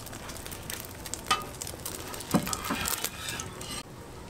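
Egg-wrapped gimbap rolls sizzling on an oiled flat griddle as they are shifted with a metal spatula, with a couple of louder knocks about one and two seconds in. The sizzling thins out near the end.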